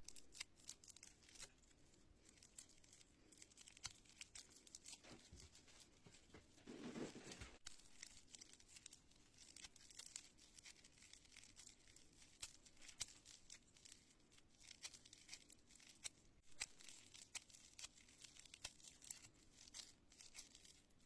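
Faint crackling and sticky popping of slime being pressed and pulled by hand, a scatter of small clicks with a longer, louder squish about seven seconds in.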